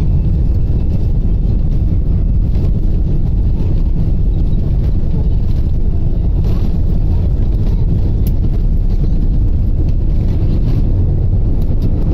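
Steady loud rumble inside the cabin of an Airbus A320 airliner on its takeoff roll, with the jet engines at takeoff thrust as the plane gathers speed.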